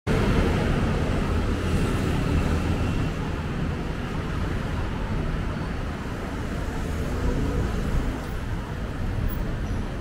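Steady traffic noise from a busy city road, a dense rumble of passing cars and other motor vehicles.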